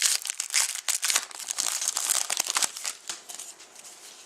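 Crinkling of a plastic trading-card pack wrapper being handled and opened, busy for about three seconds and then tailing off.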